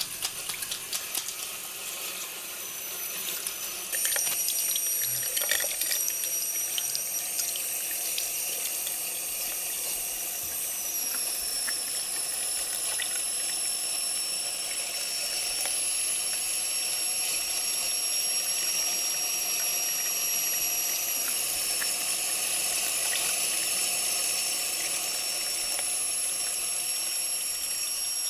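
Tap water running into a bathroom sink. It splashes unevenly for the first few seconds, then becomes a louder, steady rush about four seconds in. A thin, steady high-pitched whine runs over the water and drops slightly in pitch about eleven seconds in and again near twenty-one seconds.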